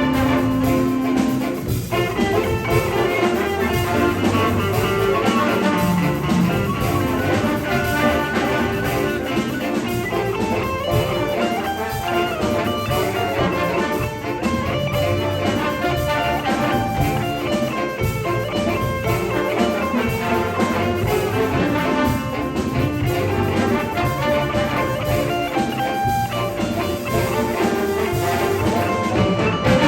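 School jazz band playing an up-tempo big-band number, with brass over guitar and rhythm section, loud and unbroken throughout.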